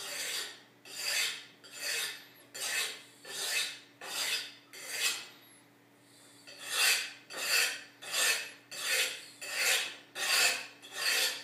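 Knife blade being sharpened on the rough unglazed back of a ceramic tile: a rasping scrape on each stroke, about fourteen strokes at a steady pace with a short pause halfway. The tile's texture is abrading the steel to set a new edge on a knife that was deliberately dulled.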